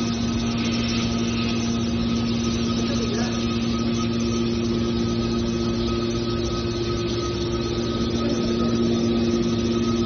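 Hydraulic power unit of a scrap-metal baler running with a steady hum while the baler's rams move.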